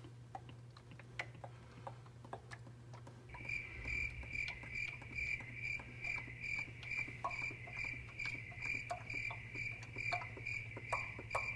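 Motor oil pouring from a plastic jug into a funnel in the engine's oil filler, with small scattered splashes and drips. About three seconds in, a high, even pulsing sets in at about four or five pulses a second and holds until near the end.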